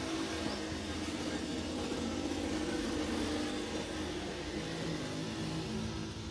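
A motor running steadily: a low hum under a constant hiss.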